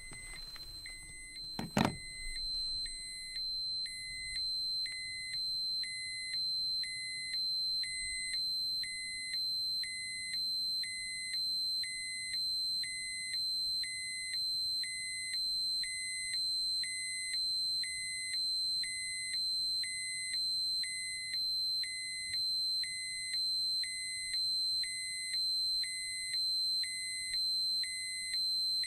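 Electronic beeping, about one short beep a second, over a steady high-pitched tone, with a single sharp knock just before the beeping starts.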